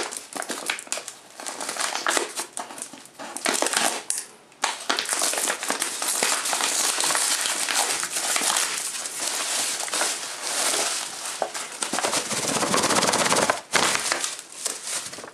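Crumpled brown paper envelope being unfastened and opened by hand: the stiff paper crinkles and rustles continuously with many small crackles. Near the end, bubble-wrapped packets slide out onto the table.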